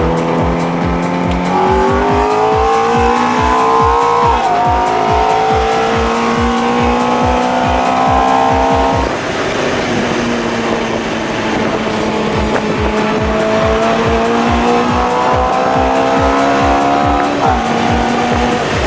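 Ferrari F430's V8 engine revving hard under load, its pitch climbing through each gear and dropping back at the shifts three times, with tyre squeal from drifting. Music with a steady beat plays underneath.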